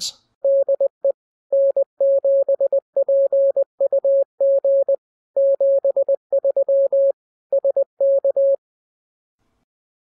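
Morse code (CW) tone: one steady beep keyed in short and long elements, dits and dahs, for about eight seconds, then it stops.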